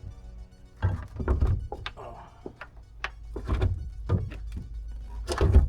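A run of hard knocks and thunks, as of a battery and tools being handled in a side-by-side's battery compartment, the loudest near the end. Background music underneath.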